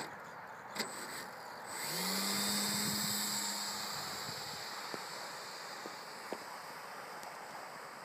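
Model Demoiselle monoplane's motor and propeller buzzing as it flies low past, swelling about two seconds in and then fading away. A couple of sharp clicks come in the first second.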